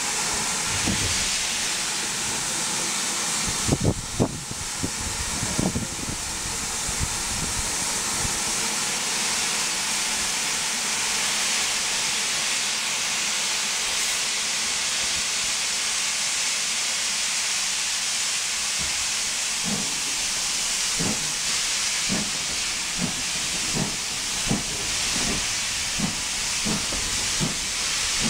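Steam-hauled heritage passenger train on the move, heard from an open carriage window: a steady rushing hiss, with a few loud knocks about four seconds in and a run of low knocks in the second half that come closer together toward the end.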